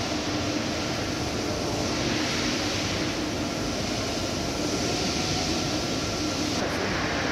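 Steady mechanical hum and hiss with faint steady tones running through it, unchanging in level.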